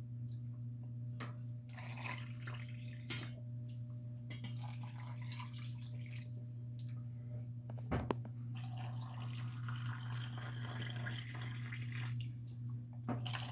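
Pickling brine being ladled into glass canning jars, trickling, splashing and dripping, with a sharp knock of the ladle about eight seconds in. A steady low hum runs underneath.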